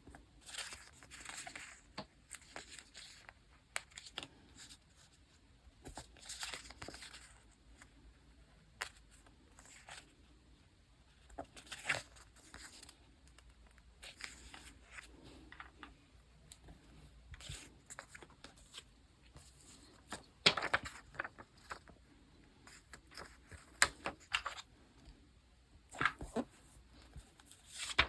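Diary-decorating handling sounds: paper and sticker material torn and rustled in short stretches, with a few sharp clicks and taps scattered through, the loudest about two-thirds of the way in.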